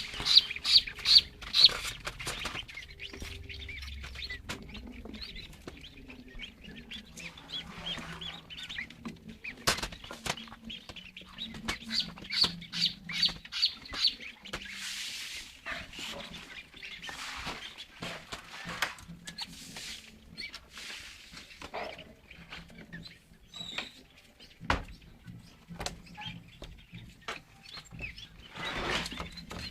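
Newly hatched chicks peeping in quick runs of short high-pitched peeps, with scattered clicks and knocks between the runs.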